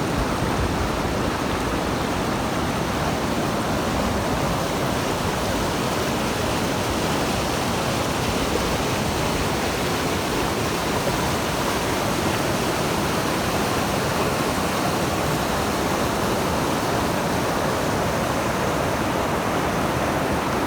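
River water rushing steadily over rocks at a waterfall cascade, a loud, unbroken roar.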